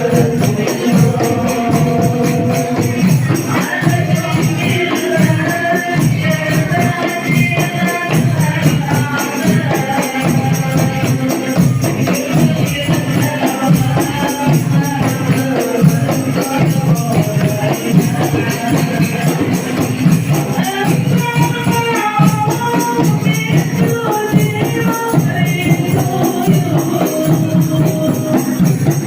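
Hadroh ensemble playing through an amplified sound system: rebana frame drums beat a fast, dense, steady rhythm under group singing.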